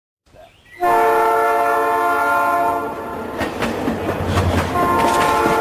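Train horn sounding a steady multi-note chord for a couple of seconds, then the clatter of wheels over rail joints, with the horn sounding again near the end.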